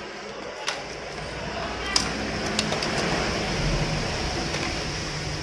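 A few sharp light clicks and taps as the keyboard's circuit board and a multimeter are handled on a stone tabletop, over a steady background noise with a low rumble that swells near the middle and then eases.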